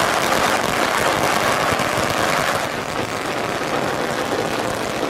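A motor engine running steadily, heard as an even, noisy drone.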